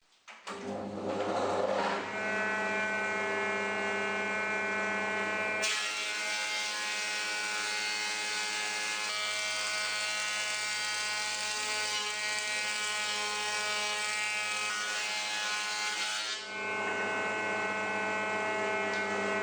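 Elektra Beckum HC 260 jointer-planer starting up and running with a steady whine. About six seconds in, a board is fed over the cutterhead, and a loud, harsh planing noise lasts about ten seconds before the machine runs free again.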